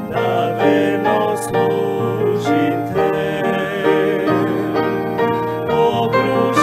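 Two men singing a Serbian hymn together, with piano accompaniment.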